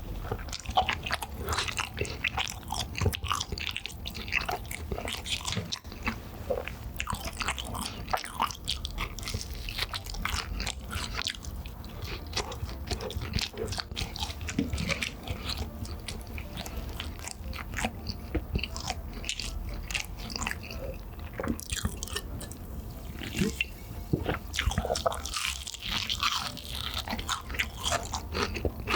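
Close-miked biting and chewing of Chicago-style cheese meatball pizza, with crunching and a steady run of small, irregular mouth clicks.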